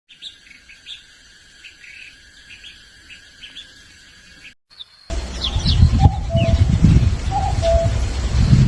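Small birds chirping faintly. About halfway through the sound cuts to a much louder scene, where a low rumble underlies a few short, falling chirps and a repeated two-note call.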